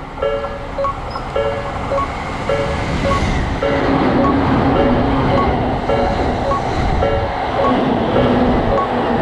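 Railroad crossing bell ringing in a steady repeating two-tone chime, a little under two strokes a second. From about three and a half seconds in, a passing train's rumble grows loud beneath the bell.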